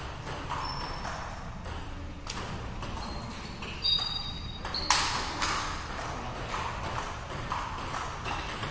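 Table tennis rally: a run of quick, sharp clicks as the celluloid-type ball strikes the paddles and the table, with two harder hits a second apart near the middle.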